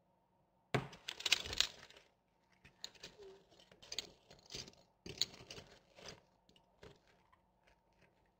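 Glass marbles clicking and clattering against one another as a guinea pig steps and shifts its weight on them. The clicks come in two main clusters, one starting a little under a second in and one around the middle, with scattered single clicks between and after.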